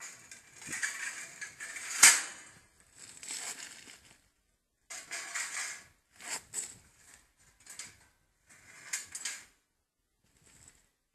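Wire-mesh metal cage trap and its add-on bait compartment rattling and clanking as they are fitted together, with a sharp metal clack about two seconds in. Several shorter bursts of metal clinking and scraping follow, dying out near the end.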